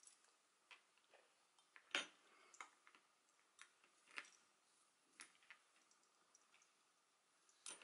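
Faint, scattered small clicks and taps from hands handling yarn and a metal crochet hook while a new thread is tied on, the loudest about two seconds in.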